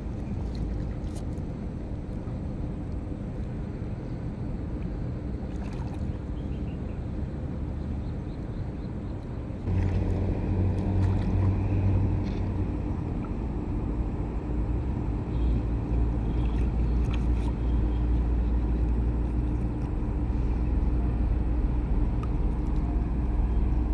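Water sloshing and splashing as a man wades and works a fish net and a wooden stick in shallow muddy water, over a steady low hum. The sound gets louder about ten seconds in.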